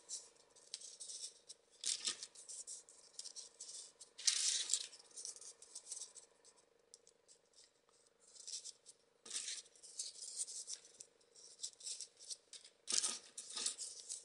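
Stiff folded paper modules of 3D origami rustling and clicking as they are handled and pushed onto a row of the figure, in irregular bursts, loudest about four seconds in and near the end. A faint steady hum lies underneath.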